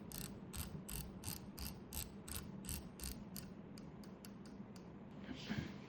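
Rifle scope turret being turned, clicking in even detents about three times a second, while its adjustment accuracy is checked.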